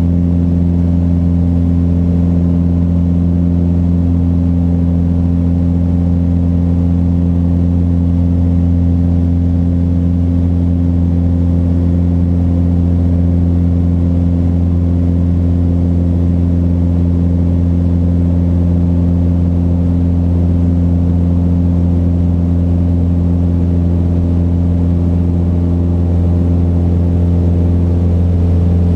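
Mooney M20J's four-cylinder Lycoming IO-360 engine and propeller droning steadily in cruise flight, heard inside the cabin: an even, low hum that holds the same pitch throughout.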